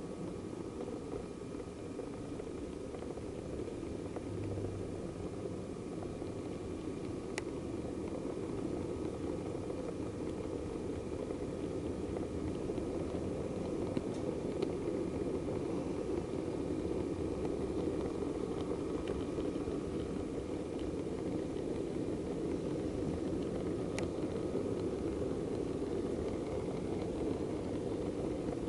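A model diesel multiple unit (DMU) train running along the track, heard from on board: a steady mechanical rumble that grows slightly louder, with a few sharp clicks.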